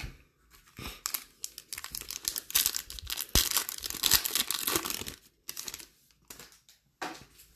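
Foil wrapper of a Prizm football card pack being torn open and crinkled, in dense crackling from about a second in until about five seconds, then a few lighter rustles.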